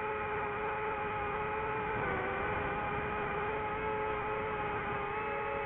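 DJI FPV drone's motors and propellers whining in flight, as picked up by the drone's own onboard microphone. The pitch holds fairly steady, dipping slightly about two seconds in and again near the end as the throttle shifts.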